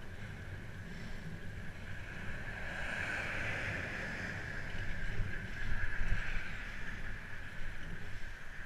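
Ride noise from a bicycle on a gravel towpath: wind rumbling on the mic and tyres rolling over the path. A steady hiss swells through the middle, with a few louder bumps.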